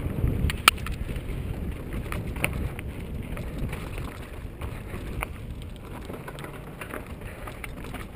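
Mountain bike rolling fast down a rocky dirt singletrack: a steady rumble of tyres over dirt and rock with wind buffeting the microphone, broken by sharp knocks and rattles as the bike hits rocks, the loudest a little under a second in.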